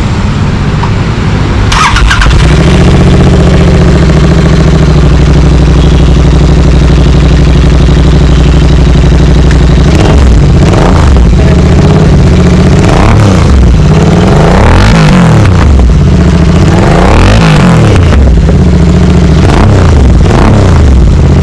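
Royal Enfield Interceptor 650's parallel-twin engine heard loud at its twin exhausts: it catches about two seconds in and idles steadily, then from about halfway it is blipped up and down again and again on the throttle.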